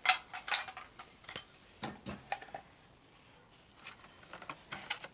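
Toy pots, pans and pretend food being handled: a run of irregular light clicks and clacks, the loudest right at the start.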